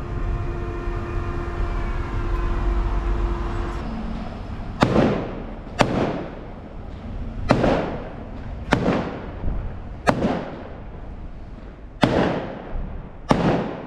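Fireworks going off in a string of about seven sharp bangs, one every second or two, each with a short echoing tail. Before them a steady hum of several tones fades out about four seconds in.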